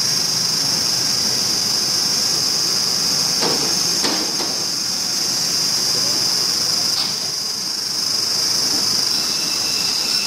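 Meat band saw running with a steady high whine, with a few knocks about three and a half to four seconds in and again around seven seconds.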